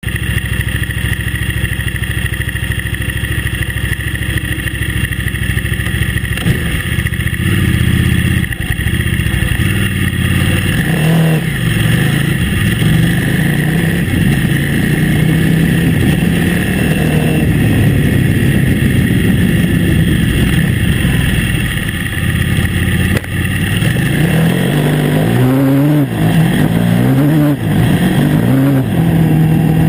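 KTM 950 Adventure S's V-twin engine running steadily at first, then pulling away on a gravel track, its pitch rising and falling with the throttle. It gives about three quick rising sweeps near the end as it accelerates through the gears.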